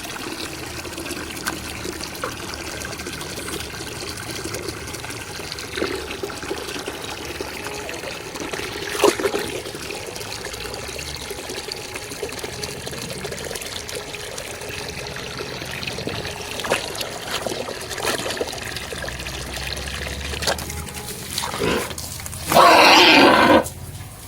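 Water trickling and running steadily during pig pen cleaning, with a few knocks. Near the end, a pig gives a loud squeal lasting just over a second.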